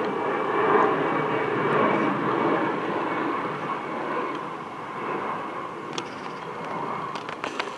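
Airbus A350-900's Rolls-Royce Trent XWB turbofans running at taxi power: a steady rushing hum with a thin whine, slowly fading. A few faint clicks near the end.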